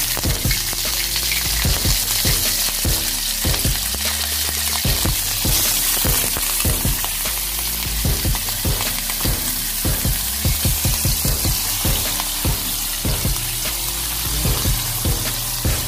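Pieces of raw meat and garlic sizzling in hot oil in a wok: a steady, dense frying hiss.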